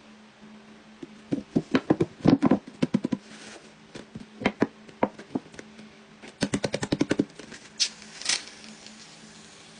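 Slime being squished by hand, giving a series of sharp clicks and pops, with a quick run of about ten pops a second a little past halfway.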